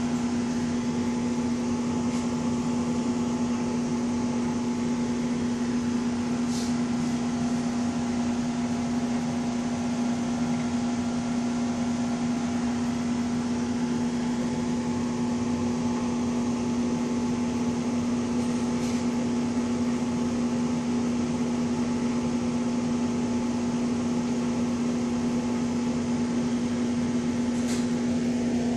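Aquarium pump humming steadily, one strong constant tone over a faint hiss, with three faint clicks spread through it.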